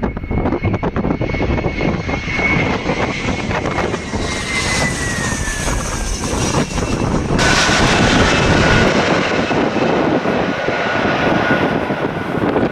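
Airliner engines running loud and close, with a high whine that slides down in pitch as the aircraft passes and wind buffeting the microphone. About seven seconds in, the sound cuts abruptly to a steady engine whine.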